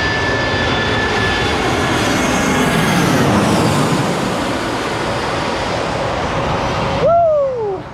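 Jet airliner passing low overhead on final approach to land, its engines loud and steady with a high whine that fades and slides down in pitch as it goes over. Just after seven seconds in, a short sound falling sharply in pitch, then the sound cuts off.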